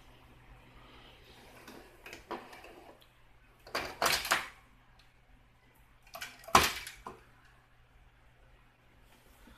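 Plastic LEGO bricks and parts clattering: a few light clicks, then two bursts of knocks and rattles, about four seconds in and again just before seven seconds, the second the loudest.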